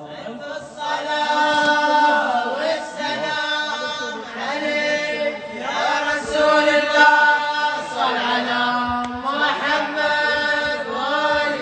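A male religious reciter chanting a lament into a microphone. It is a wavering, ornamented melodic line with a long held note about two-thirds of the way through.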